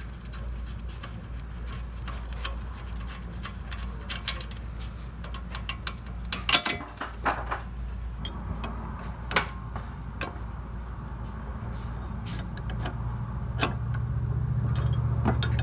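Metal tools clicking and clinking against the front sway bar link and its nuts as they are undone, in irregular clinks with a few louder knocks in the middle. A steady low hum lies underneath and grows louder near the end.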